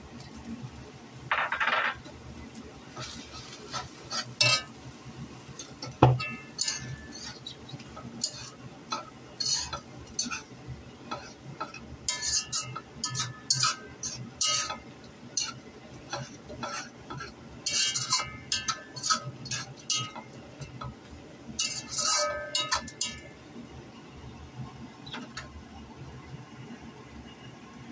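A cooking utensil scraping and clinking against a metal wok in irregular clusters as shrimp and noodles are stir-fried and tossed, thinning out near the end.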